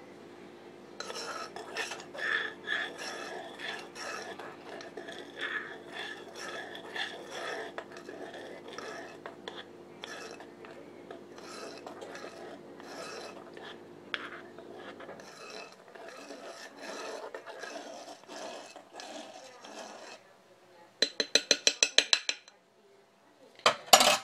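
A spoon scraping and rubbing around the inside of a saucepan of hot, just-boiled honey in irregular strokes. Near the end comes a brief, loud rattle of rapid, even clicks, then a couple of knocks.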